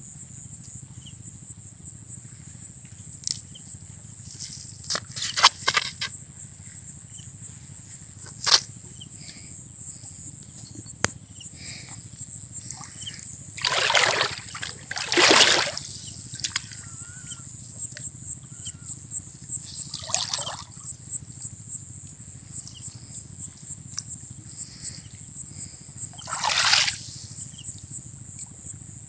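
Fine monofilament gill net hauled by hand out of still water, water splashing and trickling off the mesh in several separate spurts, the two loudest about halfway through. A steady high insect chorus of crickets runs underneath.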